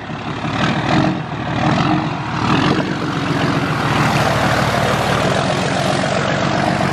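Lifted pickup truck driving through deep floodwater: its engine runs with a steady low drone under the rush and splash of water pushed up along the truck's side. The sound builds over the first two or three seconds, then holds steady.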